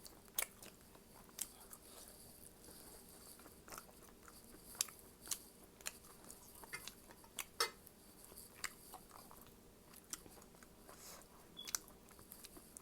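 A person chewing and biting food close to the microphone: scattered, irregular mouth clicks and crunches.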